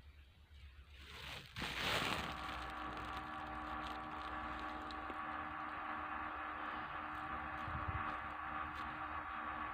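A rushing noise swells and peaks about two seconds in, then settles into a steady mechanical hum with several held tones.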